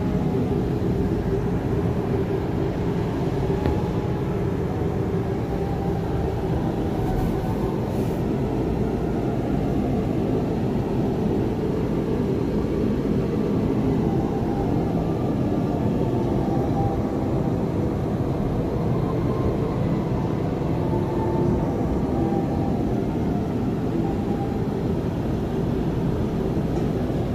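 Steady low rumble and hum heard inside an enclosed observation-wheel gondola as the wheel turns.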